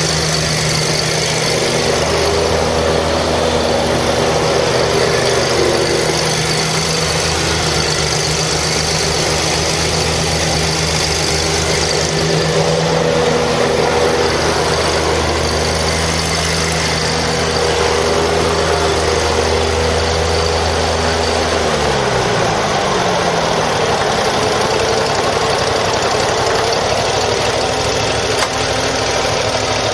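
27-horsepower Kawasaki engine of a John Deere Z830A zero-turn mower running steadily; about 22 seconds in its speed drops.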